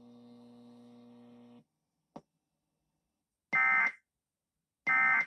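Emergency Alert System end-of-message data bursts: two short, buzzy digital bursts about a second and a half apart, each about half a second long. Before them a faint low hum cuts off, followed by a small click.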